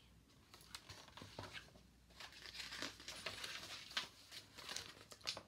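Faint rustling of paper pages as a picture book is handled and its pages turned, with a few small clicks; the rustling gets busier from about two seconds in.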